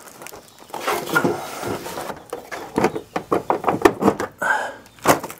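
Plastic knocks and clicks as a wall-mounted mini-split indoor head unit is pushed onto its metal mounting bracket, with rustling of its plastic protective wrap. A quick run of sharp knocks comes about three to four seconds in.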